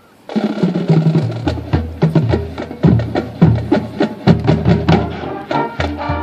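Marching band's brass and drumline start playing together, suddenly and loud, about a third of a second in: sustained low brass notes under repeated sharp drum accents.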